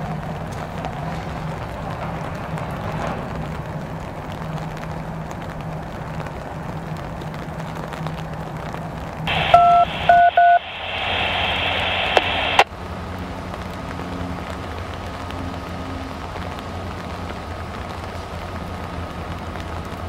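A steady low train rumble, then about nine seconds in a railroad radio scanner sounds three short beeps followed by a couple of seconds of radio hiss that cuts off suddenly. Afterwards a quieter steady hum.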